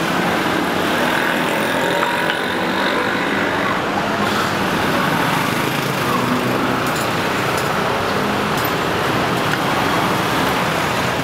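Steady city road traffic noise from passing cars and motorbikes, with a few light clicks.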